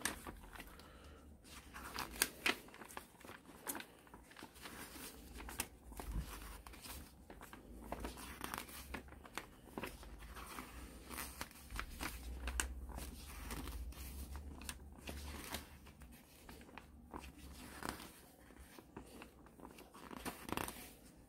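Paper pages of a LEGO instruction booklet being turned one after another: faint rustles and flicks of paper at irregular intervals.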